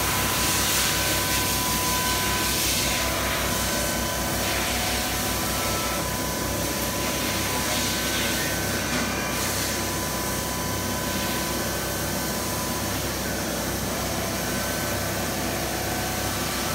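Dugard Eco 2000 vertical machining centre running, its spindle head giving a steady high whine with a second, higher tone that comes and goes, over a low machine hum.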